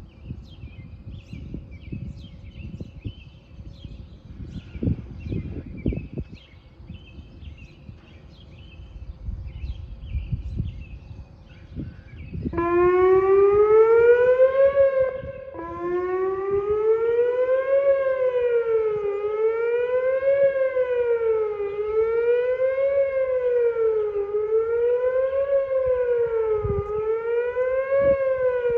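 Whelen 2900 electronic outdoor warning sirens sounding in a test. Birds chirp at first; a little under halfway through the siren starts abruptly on a rising tone, cuts out briefly, then wails up and down in a steady cycle about every two and a half seconds.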